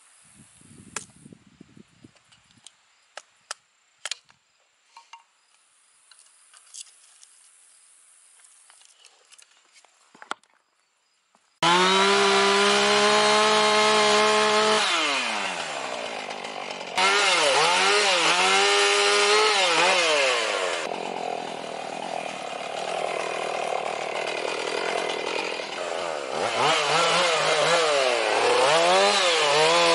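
Faint scattered clicks, then a two-stroke chainsaw cutting in abruptly about twelve seconds in and running loud while felling small cedar trees. Its engine pitch rises and drops again and again as the chain works through the wood.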